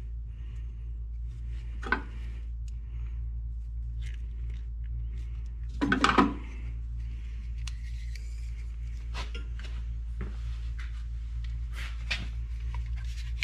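Hand-tool handling at a tractor battery: small metallic clicks and scrapes of wire crimpers working a wire and insulated terminal, with a sharp click about two seconds in and a louder clunk about six seconds in, over a steady low hum.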